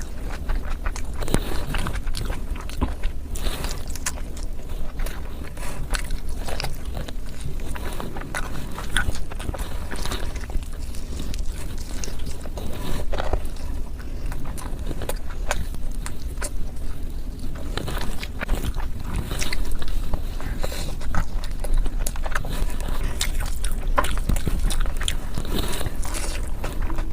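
Close-miked eating of mutton and chicken biryani: biting and chewing with frequent short, sharp mouth clicks, over a steady low rumble.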